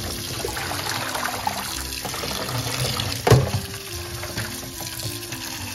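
Water running from a kitchen tap into a sink, a steady rush, with one knock a little past halfway.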